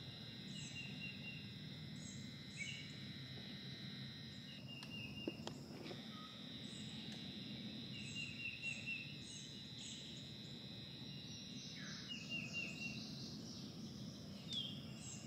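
Faint cypress-swamp ambience: a steady high insect buzz that breaks off for about a second midway, with birds chirping in short repeated calls over it.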